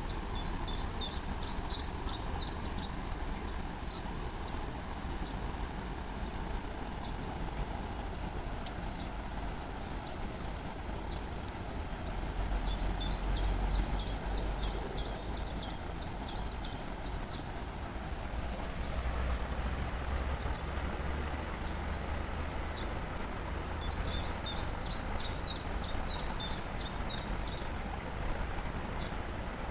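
Steady rushing of a waterfall, with a songbird singing three short phrases of rapid, high, repeated notes: near the start, about midway and near the end.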